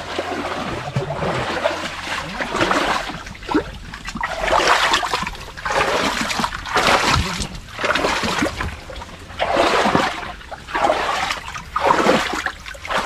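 Water being bailed out of a stream pool by hand, thrown out in repeated splashes about every second or so.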